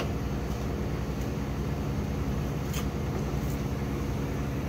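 Steady low mechanical hum, with a few faint light clicks over it.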